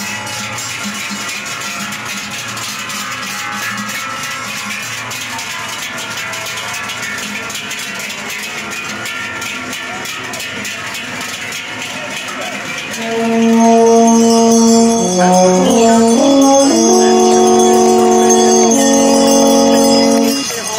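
Large cowbells on a herd of cows being driven down from the alp, clanging and jangling continuously as the animals walk past. About thirteen seconds in, much louder music of held chords changing in steps comes in and breaks off shortly before the end.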